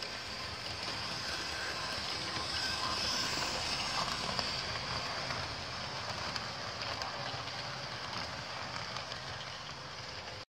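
Model train running past on the layout track: a steady whirr of motor and wheels with a few light clicks. It gets louder as the train passes close, three to four seconds in, then stops abruptly near the end.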